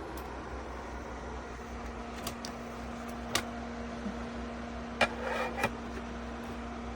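xCREAS air purifier-humidifier fan running steadily with an even whoosh and a steady hum. A few sharp clicks come through it, with a brief rustle about five seconds in.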